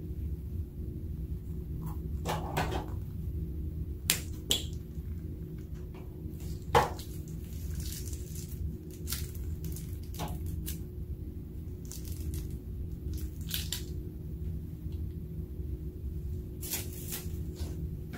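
Plastic piping bag crinkling and squelching as thick grey glue is squeezed out of it into a glass dish, with scattered crackles and small wet squishes and one sharp click about seven seconds in. A steady low hum runs underneath.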